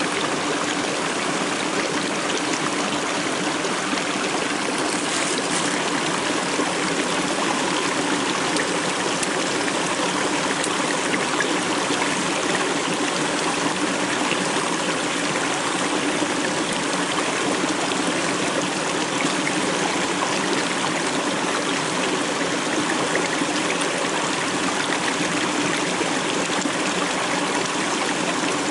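Small stream running and splashing steadily over rocks in a little cascade.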